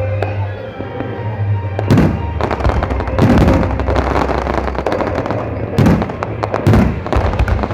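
Aerial fireworks going off: four heavy booms about two, three, six and seven seconds in, with crackling bursts between them, over music with a steady bass line.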